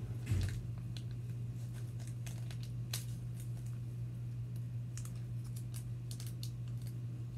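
Toy packaging being handled: scattered light clicks and ticks, with a single thump just after the start, over a steady low hum.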